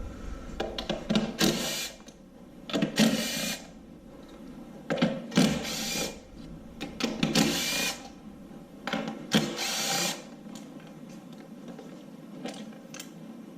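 Cordless impact gun running in several short bursts, each under a second, spinning out the coil-pack bolts on an LS V8, with small metallic clicks and rattles of parts being handled between bursts.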